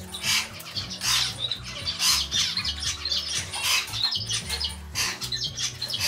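Small cage finches calling in short, repeated chirps, over background music with a steady bass line.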